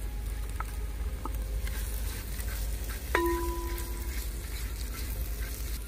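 Onion, garlic and sweet peppers sizzling in a cast-iron potjie pot, stirred with a spatula, with a few light clicks. About three seconds in, a clear ringing tone sounds for about a second.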